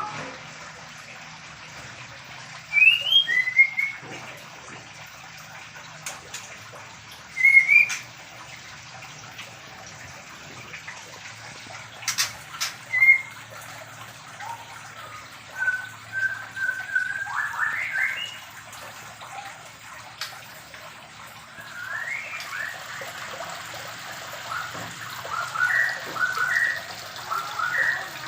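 White-rumped shamas (murai batu) calling with short, rising whistled notes in scattered phrases, one note held for about a second midway, and a quicker run of repeated notes near the end, over a steady background hiss.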